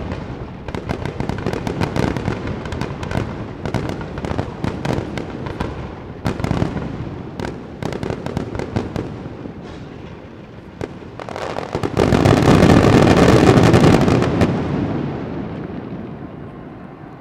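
Aerial fireworks going off, with a rapid run of bangs and crackling bursts. About twelve seconds in, a louder continuous rush of noise swells, then fades away over the last few seconds.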